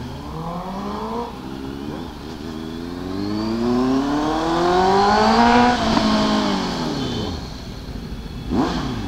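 Honda CBR650F inline-four with an aftermarket SC-Project exhaust accelerating hard, revs climbing steadily for about four seconds after a brief dip just over a second in, then falling as the throttle closes about six seconds in, with a short throttle blip near the end.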